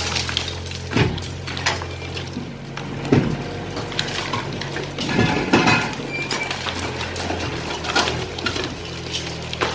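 Excavator's diesel engine running while the machine breaks up a house, with scattered knocks and clatters of falling concrete rubble. The heaviest clatter comes about five seconds in. The engine hum dips in the middle and returns near the end.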